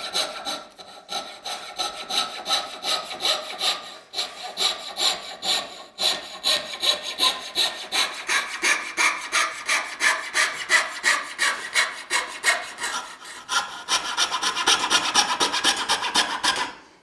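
Coping saw cutting through a walnut board, a steady run of rasping back-and-forth strokes at about four a second, with a few brief breaks, stopping abruptly near the end.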